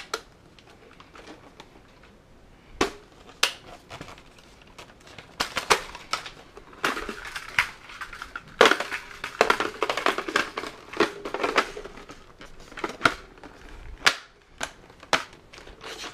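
Hard plastic toy blaster, a Nerf Rival Zeus, being handled and moved about: scattered sharp clicks and knocks with some rustling, starting a few seconds in and busiest in the middle.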